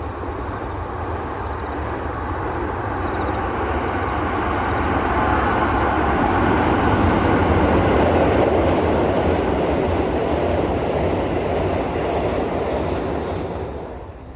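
A train passing close by: a steady rolling rumble that builds to its loudest about halfway through, then falls away quickly near the end.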